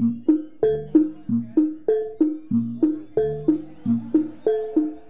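Jaranan gamelan music: a fast repeating pattern of struck, tuned notes, about three a second, each ringing briefly. A deeper note comes in roughly every second and a bit underneath.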